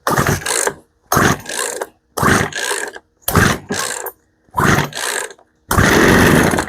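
Poulan P3314 two-stroke chainsaw being pull-started on full choke: six quick yanks on the recoil starter, about one a second, each a rasping whirr of the cord and engine turning over. The last pull is a little longer, and the engine does not catch.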